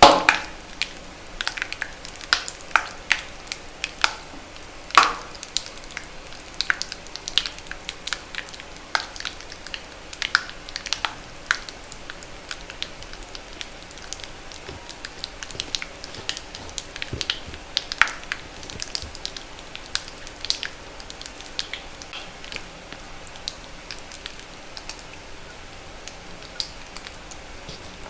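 Water-reformed magnesium carbonate gym chalk crackling and popping: irregular sharp pops over a soft fizzing hiss, loudest and most frequent in the first five seconds and sparser afterwards.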